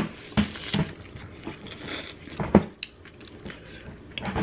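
People biting into and chewing fried breaded sandwiches, with several short, sharp crunches and mouth sounds; the loudest comes about two and a half seconds in.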